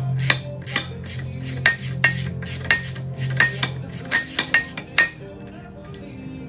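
Metal hardware and hand tools clinking and tapping during bolt-together assembly: a run of sharp, irregular metallic clicks, two to three a second, each with a short ring.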